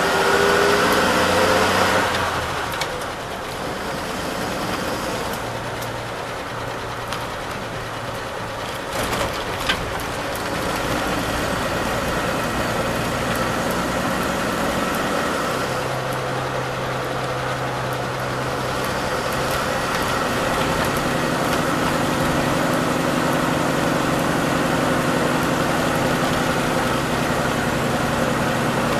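1949 Bedford OB coach's six-cylinder petrol engine heard from inside the cab while driving. Its revs climb for the first two seconds and then drop. It settles into a steady run, with a single click about ten seconds in and a shift to a new, steady note a little past halfway.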